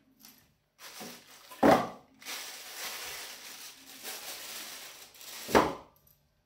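Handling noise from helmet parts: a sharp knock, a few seconds of rustling and scraping, then a second sharp knock.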